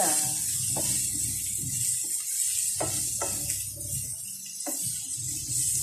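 Moringa pods and vegetables sizzling in a frying pan as a wooden spatula stirs them, with a few scrapes and knocks of the spatula against the pan.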